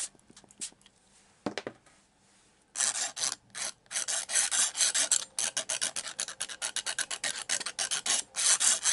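Brisk scratchy scrubbing of a painting tool against watercolour paper, in rapid strokes several times a second that start about three seconds in, after a single faint scratch.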